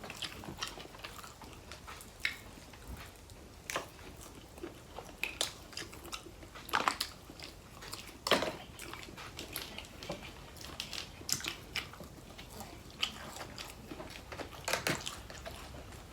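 Eating sounds: irregular biting, chewing and crunching with sharp wet snaps and clicks. The loudest snaps come near the middle.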